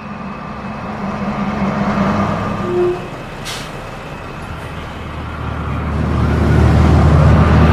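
Bus engine running steadily, with a short hiss of air brakes about three and a half seconds in; the engine then grows louder as the bus pulls away near the end.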